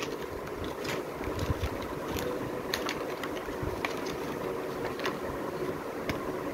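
Pages of a cardboard board book being turned and handled, giving small scattered clicks and taps over a steady background hum.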